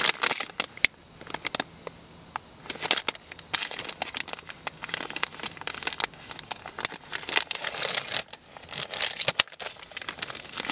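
Plastic and foil packaging of a self-heating ration pack crinkling and crackling as it is handled and opened, in irregular bursts. There is a quieter pause of a second or two about a second in.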